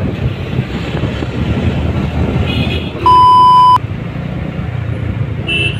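Steady motorcycle riding noise in traffic: engine and wind rumble. About three seconds in, a loud censor bleep cuts in, a single steady beep tone lasting under a second.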